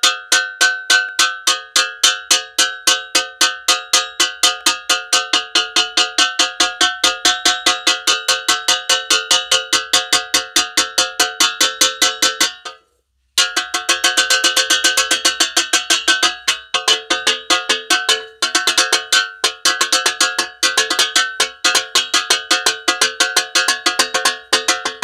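A metal spoon banging rapidly on a saucepan, about four ringing metallic strikes a second, stopping for about half a second midway before carrying on.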